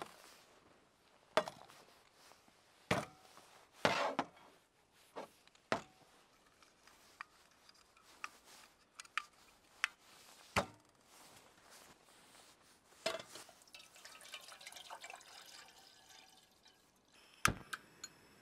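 Camping gear being handled on a metal folding table: a scattered series of knocks and clicks as a box, a small portable gas stove and a kettle are set down and the stove's parts unfolded. About two-thirds through comes a stretch of water trickling, and near the end there are a few sharp clicks from the stove's igniter.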